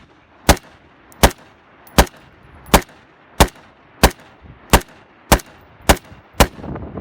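Desert Tech MDR semi-automatic bullpup rifle in 5.56 NATO fired in a steady string of ten shots, about one and a half shots a second.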